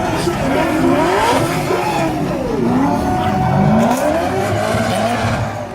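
Drift car engine revving hard, its pitch sweeping up and down again and again, with tyres squealing under the slide.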